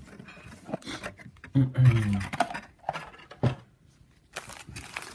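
Cardboard blaster box of trading-card packs being opened by hand: scattered scrapes, taps and light rustles of cardboard and foil packs. A short low hum, the loudest sound, comes near the middle.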